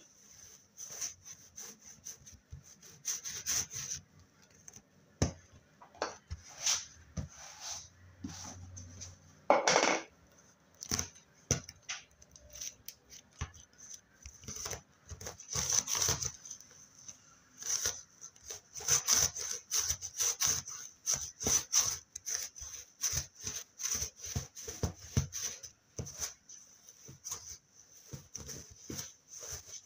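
Slime being squished and worked by hand: irregular clicks and small pops coming in clusters, with a longer, louder burst about ten seconds in.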